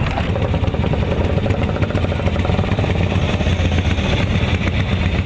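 Engines of several vintage motorcycles running at low speed, a steady rapid firing.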